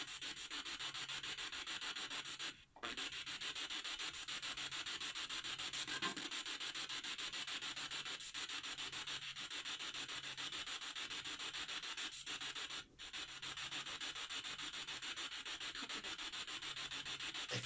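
Spirit box (ghost box) sweeping through radio frequencies: a steady static hiss chopped in a fast even rhythm, about four pulses a second, cutting out briefly twice.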